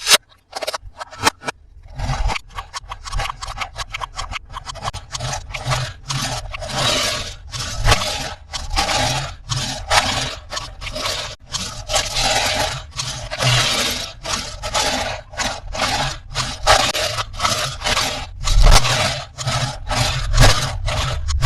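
Plastic toys and packaging being handled: a few clicks, then from about two seconds in a rapid, continuous run of scraping and rubbing strokes, several a second, with soft low thumps.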